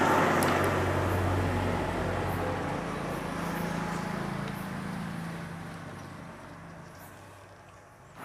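A motor vehicle's engine running, loudest at the start and fading away over several seconds, with a few faint ticks.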